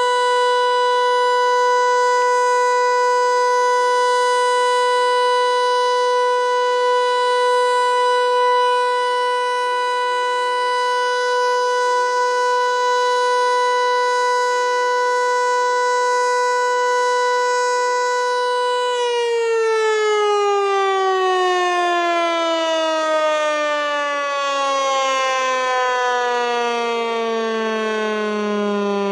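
Federal Signal Eclipse 8 outdoor warning siren sounding the full alert as one steady, loud tone. About two-thirds of the way through it shuts off and winds down, the pitch sliding steadily lower.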